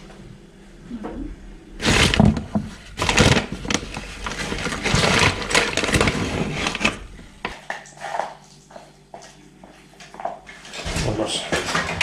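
Plastic carrier bag rustling and crinkling as it is handled close by. Loud crackling runs from about two seconds in to about seven, drops to quieter handling noises, and rises again near the end.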